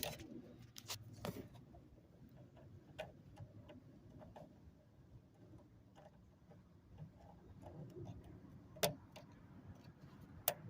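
Scattered light clicks and taps of the seat belt's plastic wiring connectors being seated in their sockets and their locking tabs pressed home, with a sharper click about nine seconds in and another near the end.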